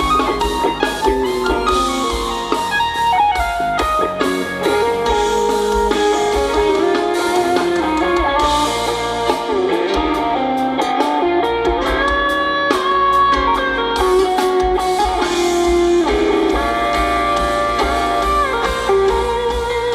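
Live band music: electric guitar carrying the melody over steady drum hits and a heavy bass.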